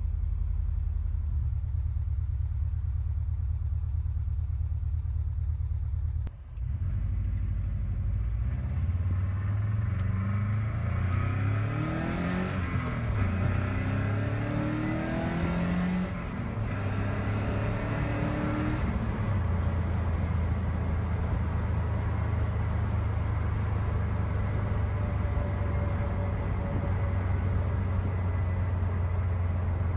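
2001 Subaru Forester's flat-four engine running, heard from inside the cabin, after a fuel pump replacement. It idles steadily, breaks off briefly about six seconds in, is revved up and down for several seconds in the middle, then settles back to a steady idle. The exhaust note is rough; the owner says the exhaust sounds like crap.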